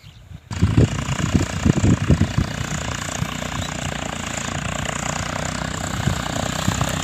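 John Deere 5050D tractor's turbocharged diesel engine running, cutting in suddenly about half a second in, uneven and louder for the first two seconds, then steady.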